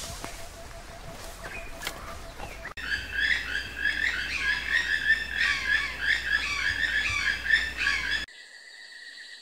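Golden-breasted starling chattering: a dense run of quick, overlapping chirps and whistles that starts about three seconds in, after a quieter stretch. It cuts off suddenly near the end, leaving only a faint steady high tone.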